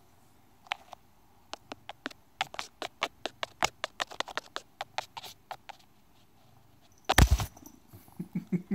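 A quick, irregular run of sharp clicks and taps. About seven seconds in comes a loud scuffling knock as a Siamese cat lunges and strikes at the phone, followed by a few short low sounds.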